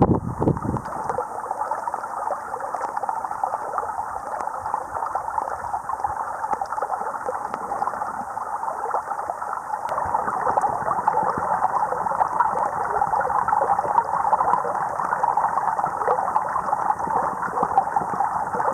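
Steady rushing hiss, even throughout, with no distinct events.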